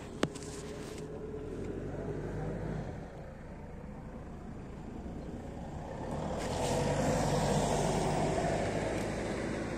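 A motor vehicle engine runs steadily, growing louder to its peak about seven seconds in and easing off near the end. A single sharp click comes just after the start.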